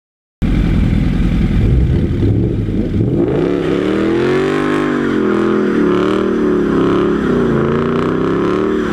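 Ford Mustang's engine revving up and down repeatedly as the car spins its rear tyres in a burnout. The sound starts abruptly about half a second in.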